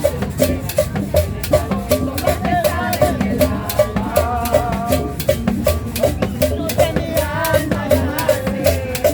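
Upbeat tropical dance music with a steady, quick beat of drums and shakers.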